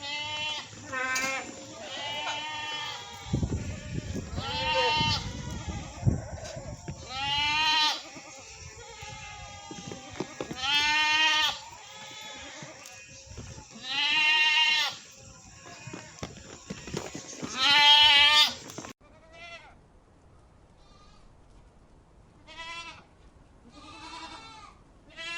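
Goats bleating again and again, each call a quavering bleat lasting about a second, the loudest ones coming every few seconds, with a low rumble beneath some of the early calls. Then, after about two-thirds of the time, fainter and thinner bleats follow.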